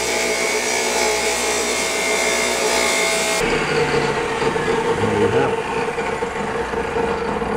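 DeWalt wet tile saw running, its blade cutting through a tile for about the first three and a half seconds. The cutting hiss then stops abruptly and the saw runs on with no load.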